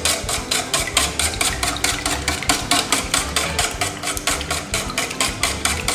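Wire whisk beating raw eggs in a stainless-steel bowl, about five quick strokes a second, the wires clicking against the metal.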